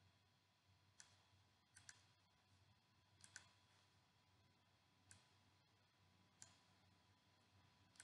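Faint computer mouse clicks, some in quick pairs, scattered over near silence.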